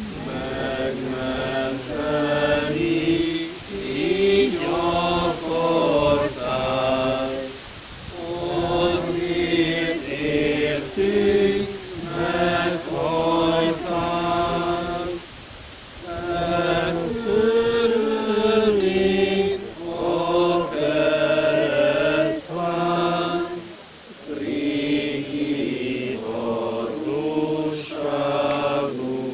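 A group of voices singing a slow church hymn in sung lines of a few seconds each, with short breaths between phrases.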